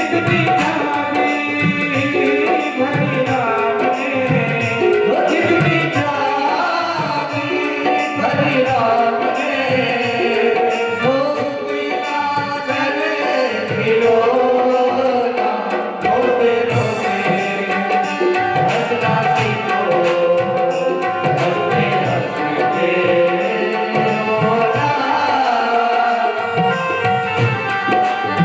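Instrumental bhajan music: tabla playing a steady rhythm under sustained melodic accompaniment, with no words sung.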